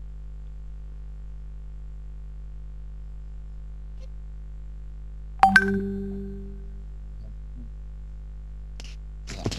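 A steady electrical hum, and about five and a half seconds in a single sharp ding that rings on and fades away over about a second and a half.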